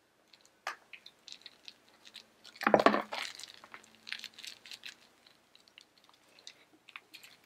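Packaging being removed from a cat toy by hand: scattered light clicks and rustles, with one much louder burst of handling noise, about half a second long, about three seconds in.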